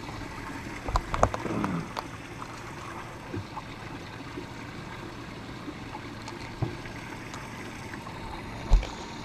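Quiet lapping of water and breeze around a small fishing boat at rest, with a few light knocks of gear against the boat and one dull thump near the end.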